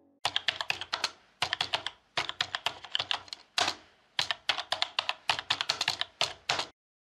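Computer keyboard typing: quick runs of key clicks with short pauses between them, stopping shortly before the end.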